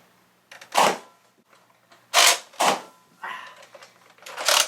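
Nerf Rival Artemis pump-action foam-ball blaster being slam-fired: the trigger is held down and each pump stroke fires a shot. There are four sharp shots about a second apart, with a weaker one in between.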